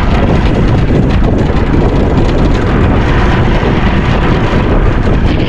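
Steady, loud wind buffeting the microphone on an open boat, a low rumbling rush with no pitched engine tone.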